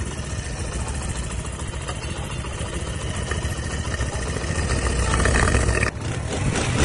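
Motorcycle engine running steadily, its level creeping up, with a sudden short break about six seconds in before it carries on.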